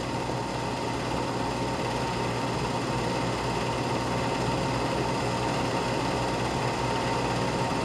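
Steady whirr and hum of a running 8 mm film projector, even in level, with a faint steady tone under it.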